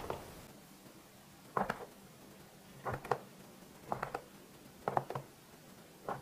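Plastic dough scraper pressed down through strips of glutinous rice dough, tapping the wooden cutting board with each cut. Five cuts about a second apart, each a quick double click.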